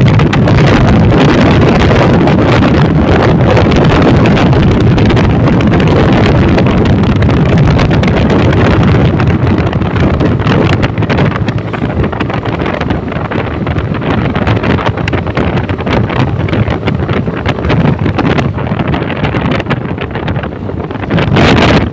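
Wind buffeting the microphone over a motorcycle's engine and road noise while riding, loud throughout; the hiss eases and the level wavers somewhat in the second half.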